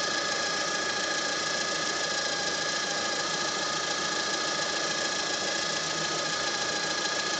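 Lada Granta engine running steadily with a high whistle and buzz over it, several steady high tones, which the owner puts down to the crankshaft position sensor.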